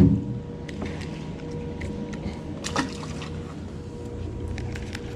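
Water lapping and trickling against a small aluminium fishing boat, with a thump against the hull at the start and scattered small clicks. A steady low hum runs underneath.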